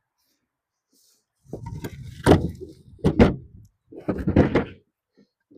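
Poplar firewood logs being thrown down onto a woodpile: a run of wooden knocks and clunks, the loudest about two and three seconds in.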